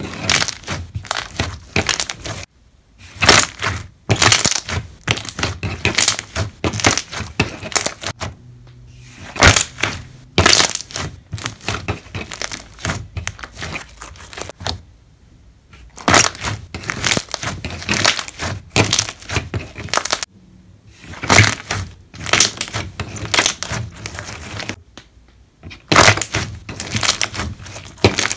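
Slime pressed and squished by hand against a hard surface, its trapped air bubbles popping in rapid crackly bursts, with short pauses between presses.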